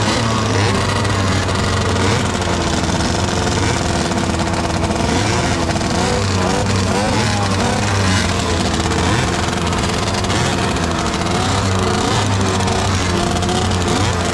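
Several tuned 50 cc two-stroke Balkan moped engines running together at a race start line, idling and being blipped so that their pitch wavers up and down.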